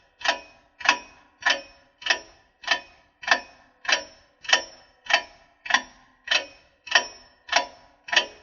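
Clock ticking sound effect: sharp, evenly spaced ticks, a little under two a second, counting down a timed pause.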